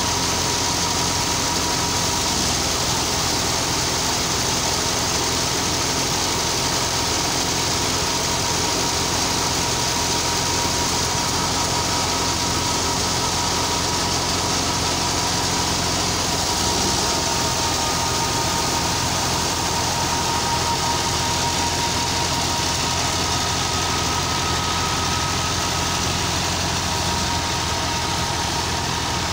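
Ghazi tractor's diesel engine running steadily at working speed, driving a belt-driven thresher whose drum whirs as bundles of dry stalks are fed in. A steady high whine runs over the engine throughout.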